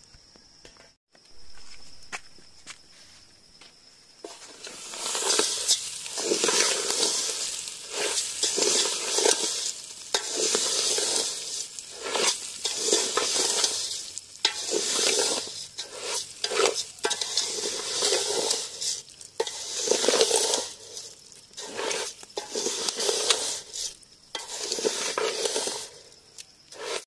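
Food cooking in a pan, sizzling with stirring or scraping that comes in repeated surges every second or two. It starts about four seconds in, after a quieter stretch.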